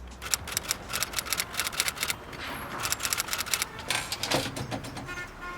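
A quick, irregular series of sharp mechanical clicks.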